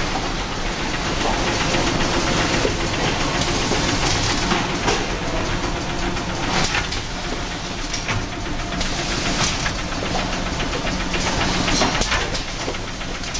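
Automatic box packing line running: steady machine noise with a low hum, and frequent clacks and knocks from the conveyors and pusher mechanisms.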